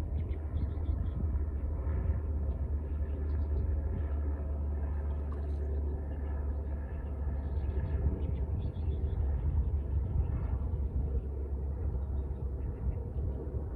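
Wind buffeting the microphone with a steady low rumble, over the continuous rushing of a river.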